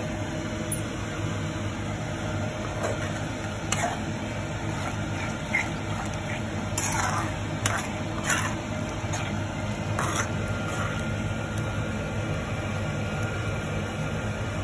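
Metal spoon stirring a thick, simmering tomato-and-onion curry gravy in a kadai, with a few short scrapes and clinks against the pan over a steady low hum.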